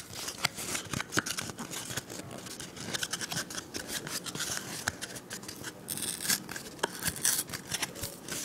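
Scissors snipping into a cardboard toilet paper tube, with irregular clicks and crinkles as the cardboard is handled.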